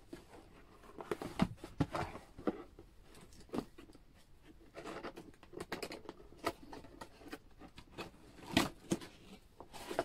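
Cardboard box being handled and opened by hand: irregular rustles, scrapes and taps of card, the loudest a knock about eight and a half seconds in.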